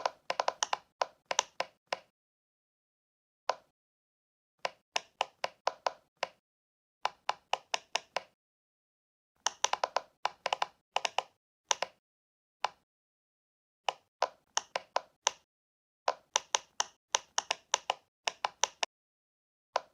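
Silicone pop-it fidget toy bubbles being pressed, making short, sharp pops. They come in quick runs of about four or five a second, with brief silent pauses between runs.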